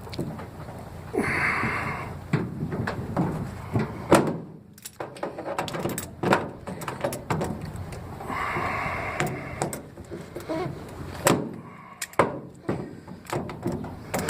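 Hand tools working a stubborn fitting loose from an aluminium diamond-plate tool box lid: metal clinks and sharp knocks, with two longer stretches of scraping, about a second in and again near nine seconds.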